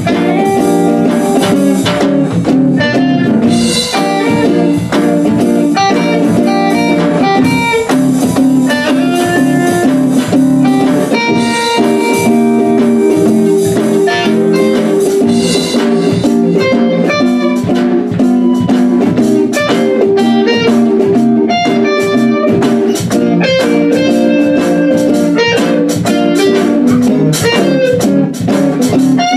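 Guitar playing an improvised blues, a steady run of picked notes over lower sustained notes.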